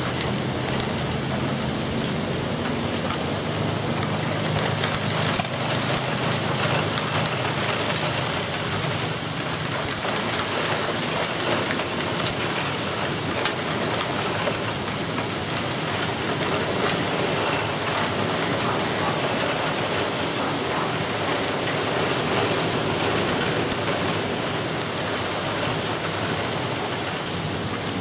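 Steady rain falling on the pavement and lawn at the onset of a thunderstorm.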